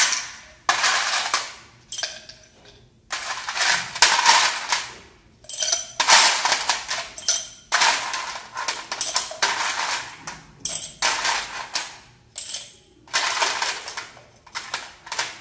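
Ice being put by hand into a tall highball glass: repeated clattering rattles of ice against the glass, about one a second.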